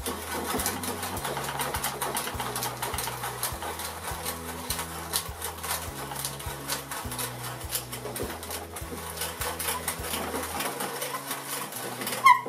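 A hand brace turns a 3/4-inch (No. 12) auger bit down through a wooden workbench top. The bit shears and crunches wood fibre in a fast, steady run of crisp rasping clicks. A single sharp, louder click comes near the end. Background music with low sustained notes plays under it.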